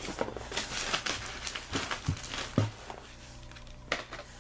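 Plastic packaging crinkling and rustling as items are handled and unwrapped, with a couple of light knocks about two seconds in, then quieter.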